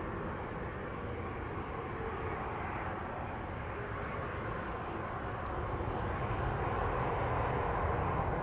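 Jet noise from a landing Airbus A320-200: a steady broad rumble that grows louder over the last few seconds.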